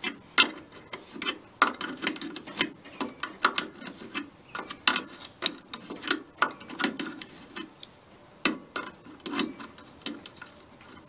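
Hand socket ratchet clicking in short, irregular strokes as it turns a nut on an engine stud.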